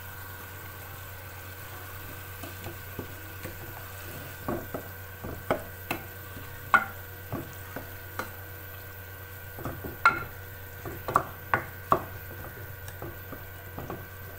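Wooden spatula stirring minced meat and tomato paste in a metal pan, knocking and scraping against the pan's sides in irregular strokes from about four seconds in, over a steady low hum.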